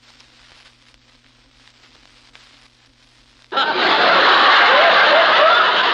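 A short pause of faint hiss and low hum, then about three and a half seconds in a vintage studio audience laugh track starts abruptly: many people laughing together.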